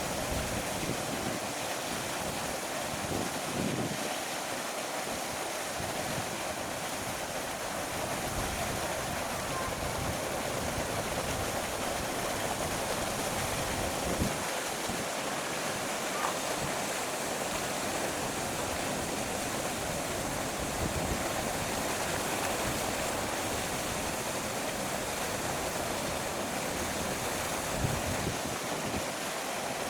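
A steady rushing noise that stays even throughout, with an unsteady low rumble underneath and no distinct events.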